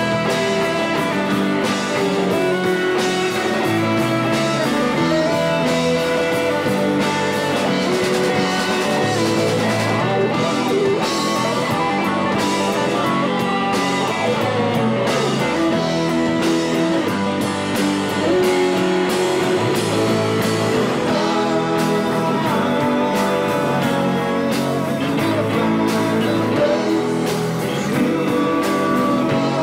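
Live rock band playing a song on electric guitars and bass, loud and steady throughout.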